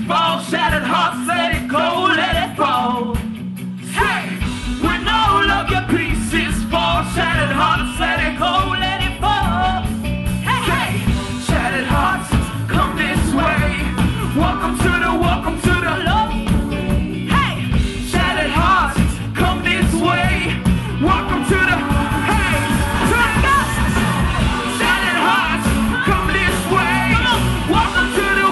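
Live hip-hop performance: vocalists rapping and singing into microphones over loud music with a heavy, steady beat. The bass drops out briefly and the full beat comes back in about four seconds in.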